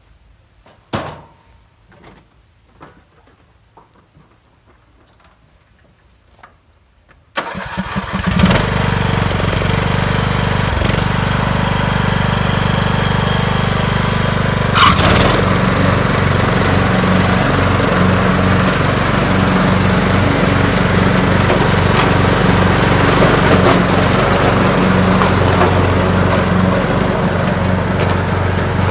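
A few faint knocks, then about seven seconds in a small gasoline string trimmer's engine starts suddenly and runs steadily at a high, even speed.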